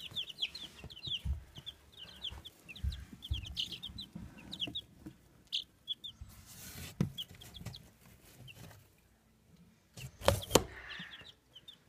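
Young chicks peeping: many short, high peeps, dense at first and sparser later, over soft low thumps. A couple of sharp, loud knocks come about ten seconds in.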